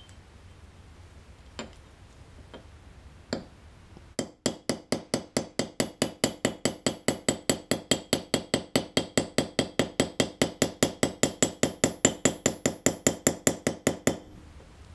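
A small hammer tapping a Japanese plane (kanna) blade held on a steel rail anvil, peening the blade to push its back out (ura-dashi). A few light taps come first. From about four seconds in there is a steady run of about five ringing metallic taps a second, which stops abruptly near the end.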